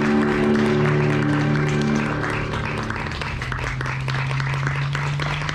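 Performance music with long held notes, ending on a sustained low note. Audience applause starts about halfway through.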